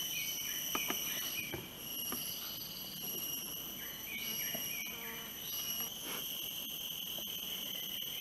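A steady, high-pitched chorus of trilling insects, with a few faint short chirps and soft clicks over it.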